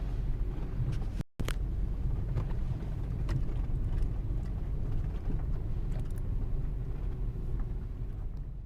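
Steady low rumble of a vehicle driving slowly, heard from inside, with a brief break about a second in and fading near the end.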